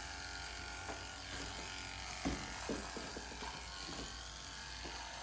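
Corded electric dog-grooming clippers running steadily with a low hum while clipping a dog's long coat, with a few faint taps.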